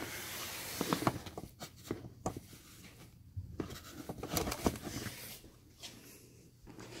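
Light handling noises: rustling with a few short clicks and knocks as a power cord and plug are handled at a wall outlet.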